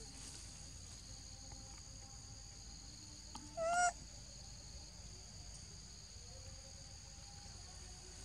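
A monkey's single short, high-pitched call with a wavering pitch about three and a half seconds in, over a steady high drone of insects.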